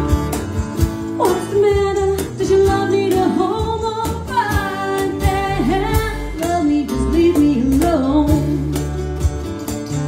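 A woman singing a melody live into a microphone over strummed guitar. The voice comes in about a second in and drops out near the end, leaving the guitar playing on.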